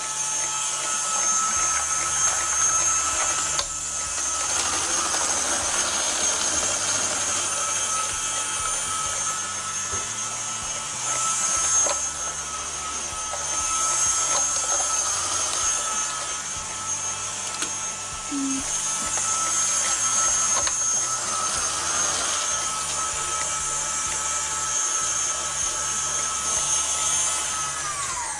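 KitchenAid Artisan stand mixer motor running steadily with a high whine, driving the slicer/shredder drum as cabbage is pushed through, with rough cutting noise that swells and fades. Near the end the whine slides down as the motor is switched off and spins down.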